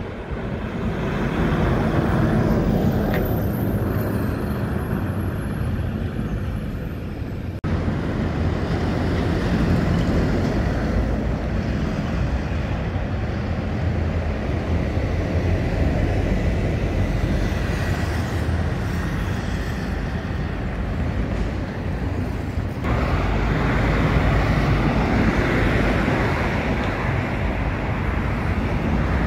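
Road traffic on a busy city avenue: buses and cars driving past, engines running and tyres on the road. The sound changes abruptly twice.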